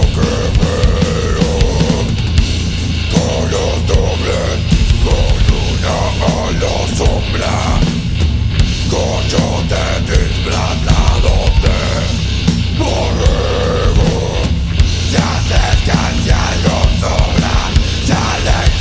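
Rock band playing live: loud, heavy music with drums driving a steady beat under sustained pitched notes.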